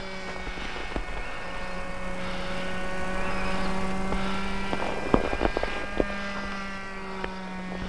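Brushless electric motor and cut-down, higher-pitch propeller of a FlyCat RC plane humming steadily as it flies fast, growing louder toward the middle as it passes nearer. A few sharp clicks about five seconds in.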